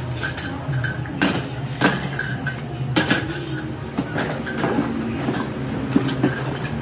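Small plastic toy dishes and utensils clattering as they are handled and put away: a string of short, irregular clacks and knocks, over a steady low hum.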